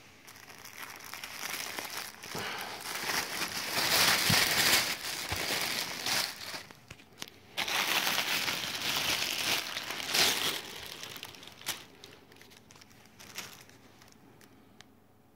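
Clear plastic packaging bag crinkling loudly as a bath mat is pulled out of it, in two long stretches with a short pause between, then dying down to faint rustles and a few small clicks near the end.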